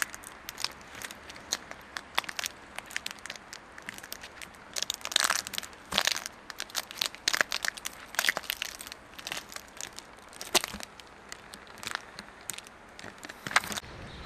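Footsteps crunching and crackling on dry pine needles, twigs and forest litter, in an irregular run of sharp crunches and snaps, thickest about five to eight seconds in.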